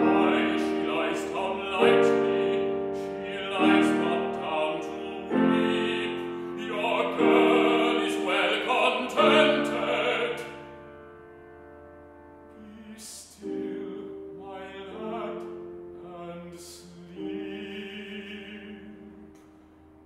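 A baritone sings a classical art song with grand piano accompaniment. He sings loudly for about the first ten seconds, then the voice and piano carry on much more softly.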